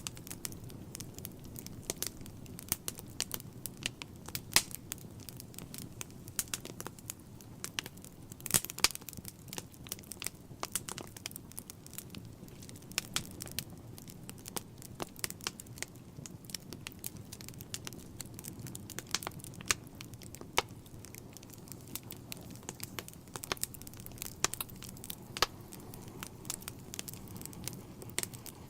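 Wood logs burning in a fireplace: irregular sharp crackles and pops over a low, steady rumble of the flames.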